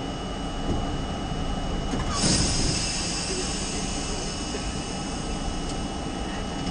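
R32 subway train running in the tunnel, heard from inside the car: a steady rumble of wheels on rail with a faint steady whine, and a short burst of hiss about two seconds in.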